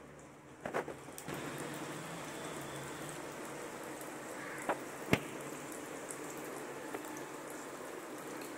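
Hot oil in a kadai sizzling as balls of then mittai batter are dropped in by hand to deep-fry. The sizzle grows louder about a second in, as more batter goes in, with a few sharp ticks, the loudest about five seconds in.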